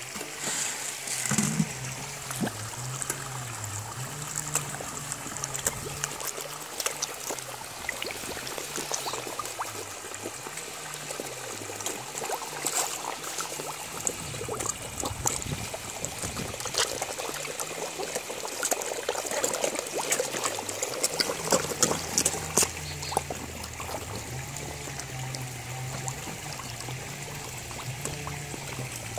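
Water trickling and pouring steadily into a koi pond, with many irregular small splashes and slurps from koi crowding at the surface with their mouths open.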